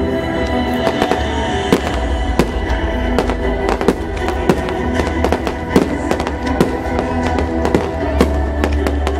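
Aerial fireworks shells bursting in a rapid, irregular run of sharp bangs, several a second, over music with a heavy bass.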